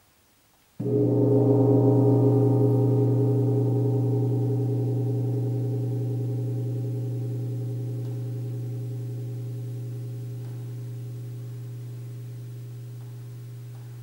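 Large hanging gong struck once with a soft-headed mallet about a second in, then ringing on with a strong low tone and many higher overtones that die away slowly.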